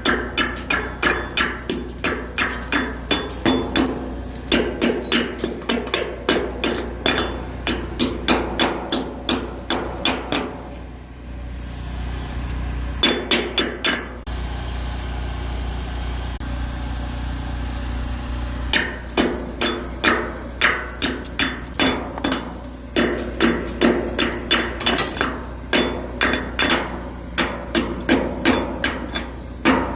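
Chipping hammer striking a fresh weld in quick metallic strikes, about three a second, knocking off the slag. The strikes pause twice for a few seconds midway.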